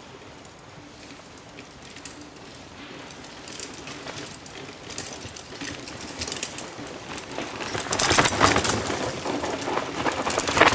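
Mountain bikes coming down a dirt forest trail and passing close by: knobby tyres crunching over dirt and leaf litter with a rapid clicking and rattling from the bikes, growing steadily louder and loudest for the last few seconds as the riders go by.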